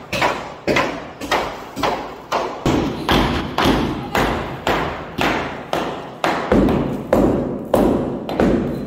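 Steady hammer blows on a masonry wall, about two a second, each a sharp knock that dies away quickly: a wall being chiselled out for plaster shelf niches.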